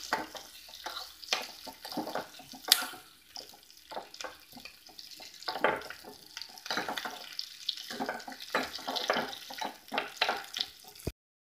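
Steel spoon scraping and knocking against a small frying pan as onion slices, green chillies and curry leaves are stirred in oil, over a light sizzle. There is one sharper knock about three seconds in, and the sound cuts off abruptly just before the end.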